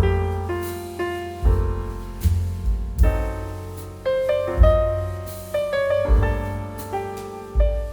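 Background piano music: struck notes that ring and fade, with low bass notes under a higher melody.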